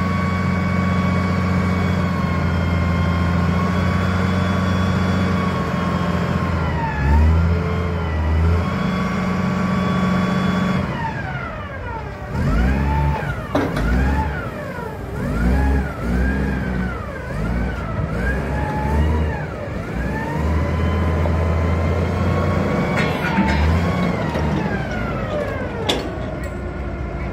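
Diesel engine of a 2014 Lonking 7-ton forklift running under throttle as the machine drives and manoeuvres. The engine speed holds high for stretches, then drops and rises again several times in quick succession through the middle.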